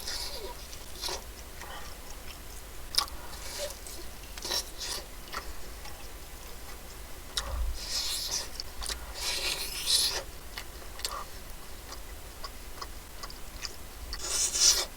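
Close-miked eating of crispy fried chicken: crunchy bites and chewing with scattered small clicks, the loudest crunches about eight to ten seconds in and again near the end.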